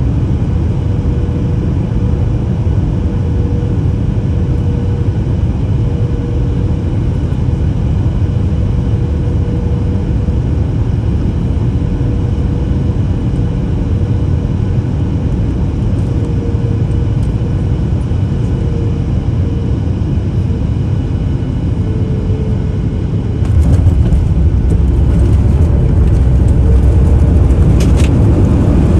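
Cabin noise inside a Boeing 737 MAX 8 on final approach: a steady rush of air and engine hum with a faint held tone. Over three-quarters of the way in the jet touches down and the sound jumps louder into the low rumble of the wheels rolling on the runway, with a brief rattle near the end.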